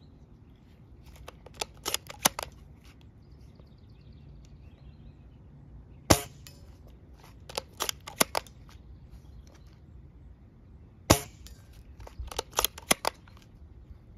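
Amoeba Striker AS01 spring-powered bolt-action airsoft sniper rifle fired twice, each shot a single sharp crack about five seconds apart. Before each shot and again after the second, a quick run of clicks as the bolt is worked to cock it.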